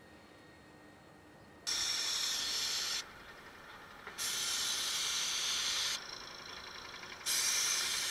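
Paint spray gun hissing in three bursts of one to two seconds each, starting and stopping sharply as the trigger is pulled and released while paint is sprayed onto the concrete chimney.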